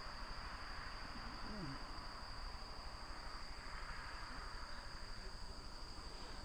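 Night chorus of autumn crickets: a steady high-pitched trill under rapid, even chirping.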